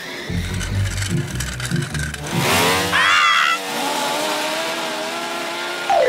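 Cartoon sound effects of a remote-control car's motor: a low rumble, then a rising whine that levels off into a steady buzz, with a brief high squeal about three seconds in and a falling whine at the very end.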